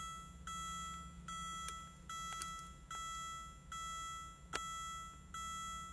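Car's electronic warning chime dinging over and over, a little more than once a second, each ding fading away. There are a few light clicks in between.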